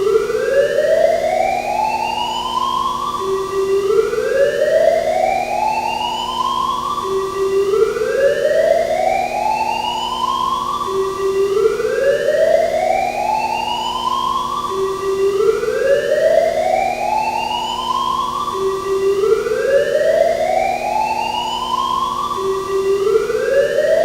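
Arena fire alarm sounding its evacuation whoop: a tone sweeping steadily upward from low to high, then starting over, about once every four seconds, above steady low tones.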